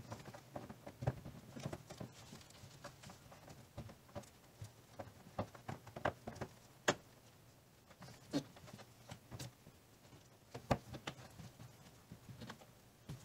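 Irregular small clicks, taps and rustles of hard plastic handled by a gloved hand: the low beam bulb and its round plastic dust cover being worked into the back of a 5th-gen Toyota 4Runner's headlight housing. A faint steady low hum runs underneath.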